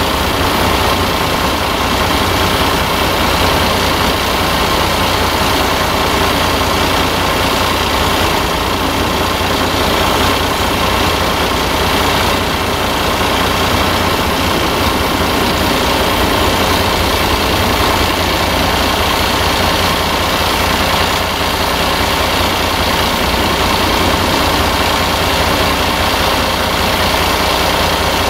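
Heavy diesel engines running steadily at idle speed, from a lorry and a ROPA Maus 5 sugar-beet cleaner-loader.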